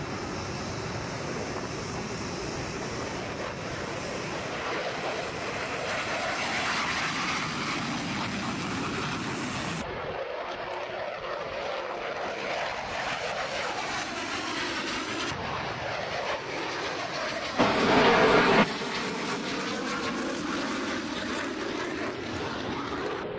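Military jet engines running in a continuous rushing noise, broken by abrupt cuts where different clips are joined. About three-quarters of the way in there is a louder burst lasting about a second.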